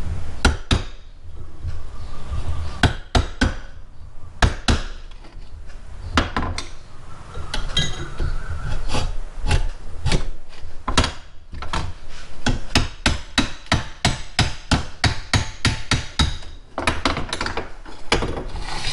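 Repeated sharp, irregular knocks, about two or three a second, as a stuck part of an old drill press's electric motor is tapped and worked loose during disassembly.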